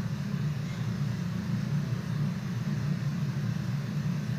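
A steady low hum with no speech over it.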